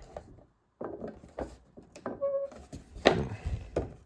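Plastic action figure being handled and set down on a hard surface: several light knocks and clicks as it is tried standing up, without success.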